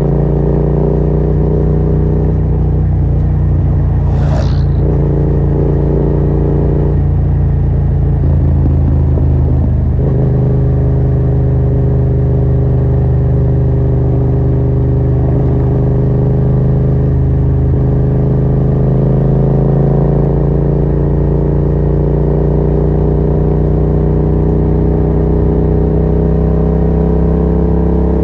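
Yamaha MT-07's parallel-twin engine running loud through a Yoshimura R77 exhaust with the dB killer removed, riding under way. The note changes as gears shift near the start and about ten seconds in, then rises slowly as the bike gathers speed.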